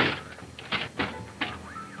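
Four sharp knocks or clanks, the first and loudest at the start, then three more in the second half, over background music.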